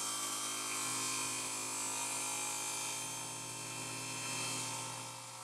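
Table saw running with its blade cutting a stopped slot into a plywood blank: a steady, even hum with a hiss that eases off slightly near the end.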